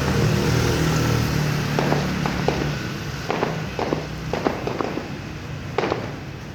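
Fireworks going off: irregular sharp bangs and crackling pops, several a second. A low rumble fades away over the first two seconds.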